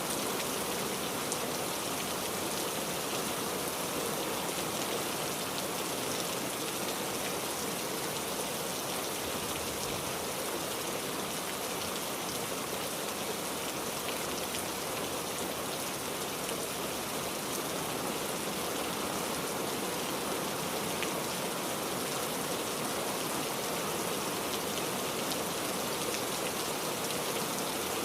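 Steady rain falling, with a dense patter of raindrops hitting a surface.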